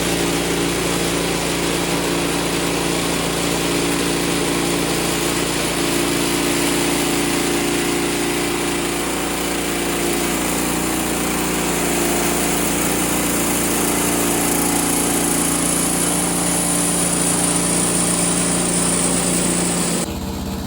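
Portable bandsaw mill running steadily, its small gas engine under load as the band blade cuts through a white oak log. The sound changes abruptly just before the end.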